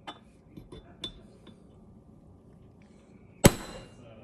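Hammer driving the bolt catch pin into an AR-15 lower receiver: a few light metallic taps in the first second and a half, then one hard strike that rings on near the end.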